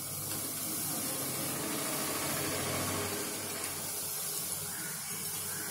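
Urad-and-rice chakli spirals deep-frying in hot oil in an iron kadai: a steady sizzle of bubbling oil.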